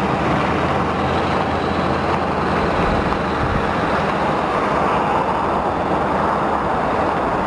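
1999 Ford F450 Lariat truck's engine running steadily, a low hum under a broad rushing noise.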